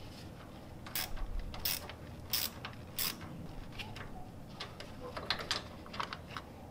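Ratchet wrench with a socket clicking as it runs down a fuel pump mounting nut on an air-cooled VW Beetle engine. There are four sharp clicks, each about two-thirds of a second apart, then lighter clicks near the end.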